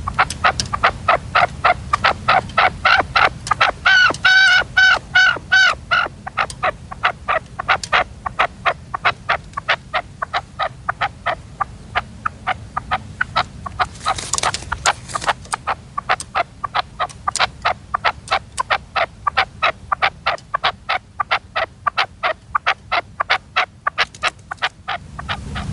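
Red-legged partridge calling: a long, even run of short clipped notes, about three or four a second. A few longer, ringing notes come about four seconds in, and a louder burst about fourteen seconds in.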